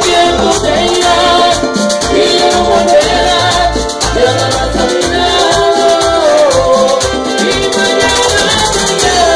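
Live Latin band music with a güira, a perforated metal scraper, scraped in a fast, steady rhythm right at the microphone, over a melody line and a pulsing bass.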